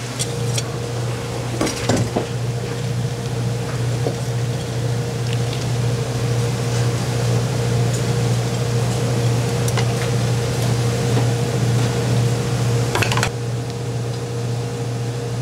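Steady low hum of commercial kitchen equipment under an even hiss of frying oil, with a few sharp clinks of dishes and utensils.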